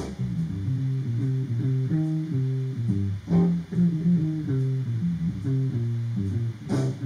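Instrumental passage of a blues song: plucked guitar and bass guitar play a steady riff of short notes, with a sharper accent about three seconds in and again near the end. There is no singing.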